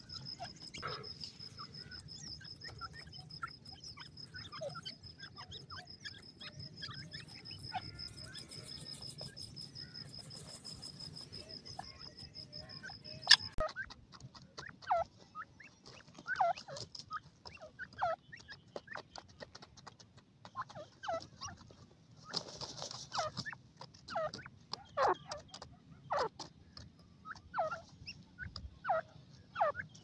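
Grey francolins calling with short, downward-sliding chirps, repeated many times through the second half. Before that a steady high insect trill runs with only scattered faint chirps, and it stops abruptly with a click about halfway through.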